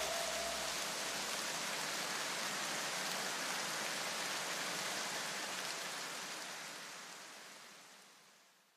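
A steady, rain-like hiss of noise that slowly fades out to silence near the end, with faint low pulses dying away in its first second or so.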